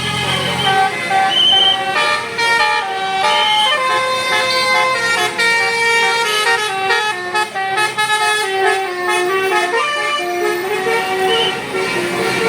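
Bus 'telolet basuri' musical horn set playing a melody of quick stepped notes that go up and down. A low engine rumble is heard briefly at the start.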